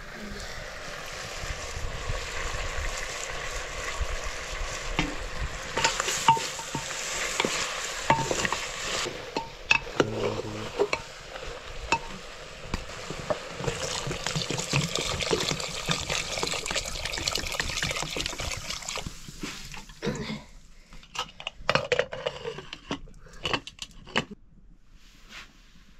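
Pork frying with spices in an aluminium pressure cooker, sizzling while a metal ladle stirs and scrapes the pan, the sizzle swelling twice. Near the end, a few metal clanks as the cooker's lid is fitted and locked.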